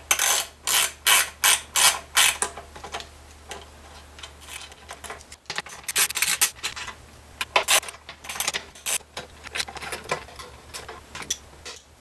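Runs of quick, sharp metallic clicks and rattles from a small hand tool and tuner hardware as vintage Gibson Deluxe tuners are unscrewed and taken off a guitar headstock, about three clicks a second in two or three bursts.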